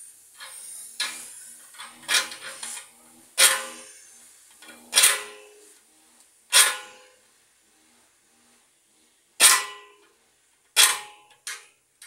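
Small hacksaw blade cutting the copper pipe at a refrigerator compressor in about eight short strokes with uneven pauses, several of them ringing briefly. The pipe is hard to cut. A faint hiss of escaping refrigerant gas fades out in the first second or so.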